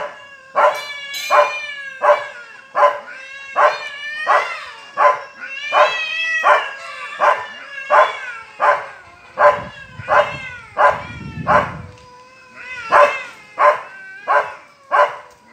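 Aspin dog barking over and over, about one bark every 0.7 seconds, while two territorial cats keep up a long, wavering yowl as they face off. A low rumble joins in for a few seconds past the middle.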